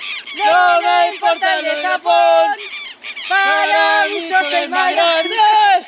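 High-pitched voices singing a sports fan chant. Two sung phrases with a short break about three seconds in.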